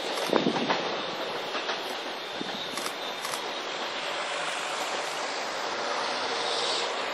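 Korail Mugunghwa passenger train rolling along the track out of view: a steady noise of wheels on rail, with a few sharp clacks in the first second.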